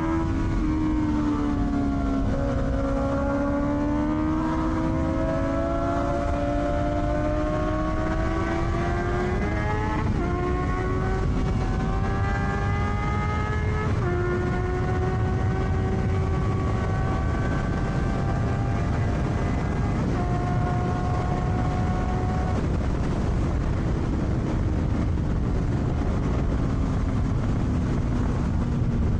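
Honda CBR650R's inline-four engine breathing through an Akrapovic exhaust, ridden under way. The pitch climbs steadily and drops at two upshifts, about ten and fourteen seconds in, then holds and eases off in the last few seconds. A steady low rush of wind on the microphone runs underneath.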